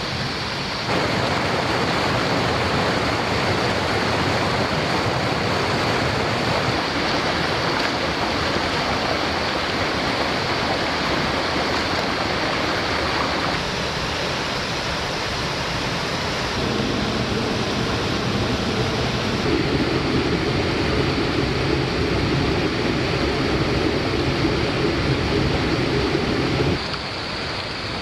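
Steady rushing water, like a flowing creek or cascade. It changes abruptly in loudness and tone several times, jumping up about a second in and dropping back near the end.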